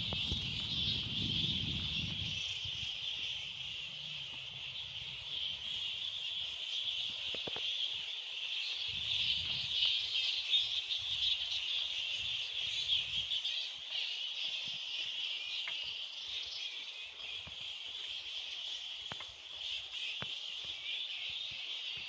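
Steady outdoor chorus of insects, a dense high trill that holds on without a break. Low rumbles come at the start and again about midway.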